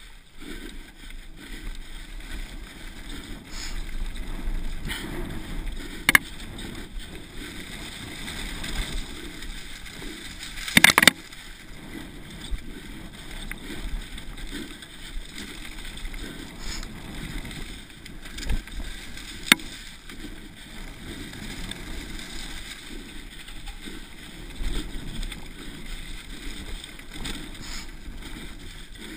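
Mountain bike descending fast over rough grassy ground: a continuous rush of wind on the microphone and tyre and frame noise, broken by sharp clacks about six and nineteen seconds in and a brief rattle about eleven seconds in as the bike hits bumps.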